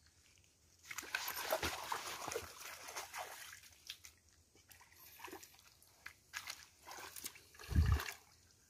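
Shallow muddy stream water splashing and sloshing as it is waded through in rubber boots and stirred by hand, in uneven bursts, busiest in the first few seconds, with a dull thump near the end.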